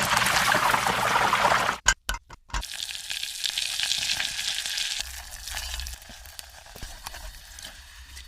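Food sizzling and frying in a hot pan, a dense crackling hiss that breaks off abruptly twice about two seconds in, then goes on more faintly after about five seconds.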